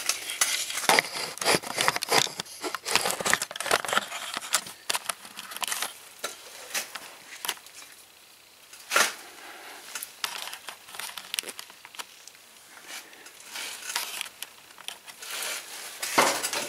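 Irregular rustling and scattered sharp clicks and light metal clinks from hands on the camera and on the exposed engine of a 150cc go-kart, busiest in the first few seconds, with one sharp click about nine seconds in.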